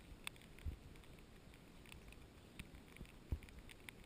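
Faint, scattered raindrops tapping on the camera, irregular sharp ticks over a quiet background, with a couple of low thumps about a second in and near the end.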